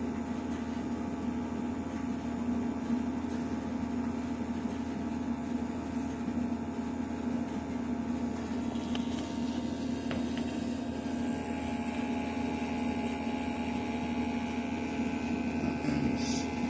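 Steady electric hum of a small motor-driven pump, with several steady tones, typical of a Testo 310 combustion analyzer's sampling pump running during a test. Some of the higher tones drop out near the end.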